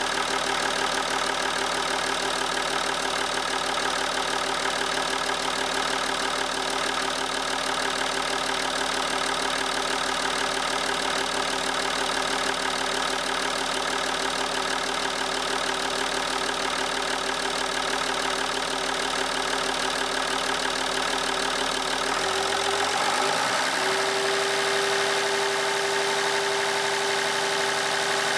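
Opel Omega 2.5 DTI's straight-six turbodiesel engine running steadily at idle; about 23 seconds in the tone shifts briefly upward and settles at a new steady, slightly louder pitch.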